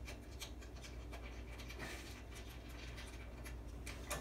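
Faint clinks and scrapes of a steel chain link, bolt and washer being handled against a steel trailer frame, with a sharper click near the end.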